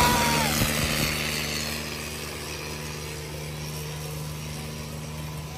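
Diesel tractor engine running steadily, growing quieter over the first couple of seconds and then holding an even note.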